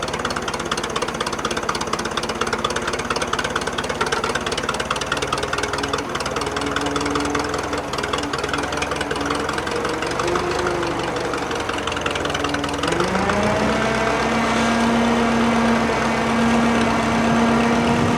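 Drott 85RM2 crane's engine running steadily under hydraulic load as the crane works a heavy lift. About thirteen seconds in the pitch rises and holds higher.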